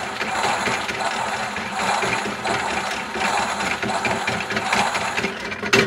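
Toy washing machine running, its small motor turning the drum with the toys rattling around inside; it stops with a click near the end.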